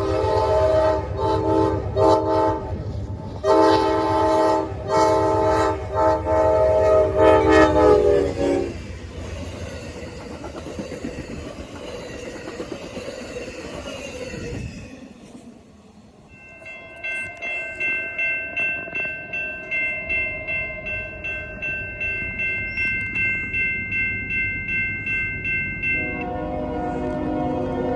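A locomotive air horn sounding a string of short and long chord blasts over the low rumble of the train for the first eight seconds or so, followed by the rushing noise of the passing train. After a short lull, a railroad warning bell rings in a steady beat of a little under two strokes a second. Near the end a second train horn starts up, lower in pitch.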